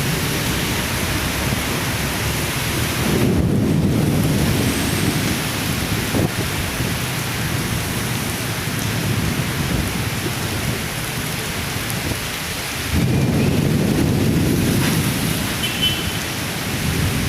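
Heavy rain pouring down in a storm with strong wind: a steady loud hiss. Twice, about three seconds in and again near the end, a low rumble swells up for a couple of seconds.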